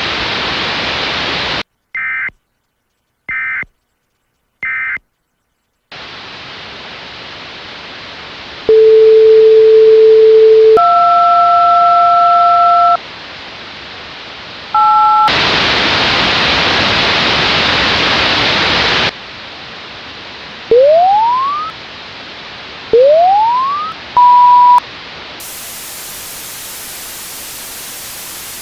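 Mock emergency-alert broadcast audio. Radio static gives way to three short data bursts like an EAS end-of-message code. Then come loud synthetic alert tones over the hiss: a steady low tone, a two-note tone, a brief two-note blip, a loud burst of static, two quick rising chirps, a short beep, and a thin high hiss.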